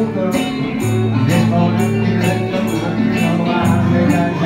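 Live acoustic band playing, with several strummed guitars over a steady shaken beat about twice a second.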